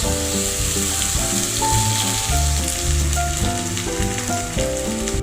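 Food sizzling as it fries in a hot pan, over background music with a melody of held notes.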